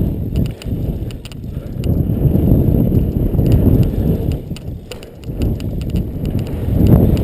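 BMX bike being ridden around a BMX track: a low, uneven rumble from the tyres and frame that swells and dips, with scattered clicks and rattles.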